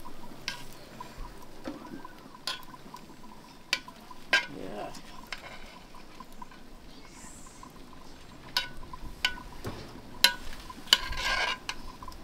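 A long metal spoon stirring and turning rice and peas in a large aluminium pot, with sharp knocks and scrapes of metal on the pot at irregular intervals, clustered near the end.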